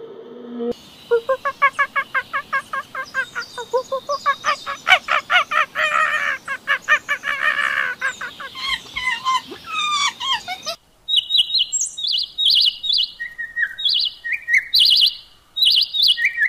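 Bird calls in two parts. First a long run of rapid, evenly repeated pitched calls that speeds up and then trails off in falling notes; then, about eleven seconds in, sharp high chirps repeated in short groups.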